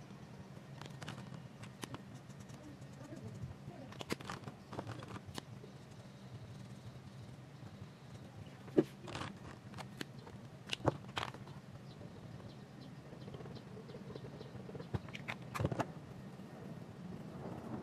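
Scattered light clicks and taps of alcohol markers and a coloured pencil being handled and set to sketchbook paper, over a steady low hum. The sharpest clicks come about nine and eleven seconds in, with a cluster near the end.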